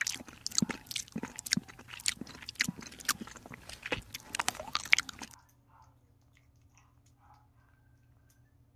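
Kitten eating chunky wet cat food from a plate: quick, irregular wet smacking and clicking chews. The chewing cuts off suddenly about five seconds in, leaving only a faint steady hum.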